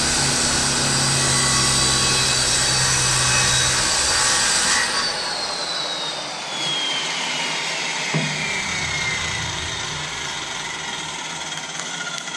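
Corded circular saw cutting through a plywood sheet. About five seconds in it is switched off, and its whine falls steadily in pitch as the blade spins down. A single knock follows about three seconds later.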